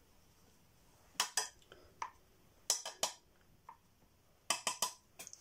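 Makeup brush tapping and clicking against an eyeshadow palette as shadow is picked up: light, sharp taps in quick groups of two to five, a group roughly every second and a half.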